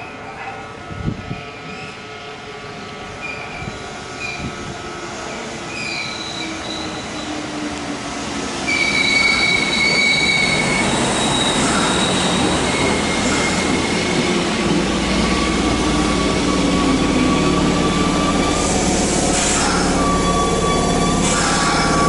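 Kintetsu electric train pulling into the station alongside the platform. Its running noise grows and gets sharply louder about nine seconds in, with high steady squeals from the wheels and brakes and a low steady rumble as it slows beside the platform.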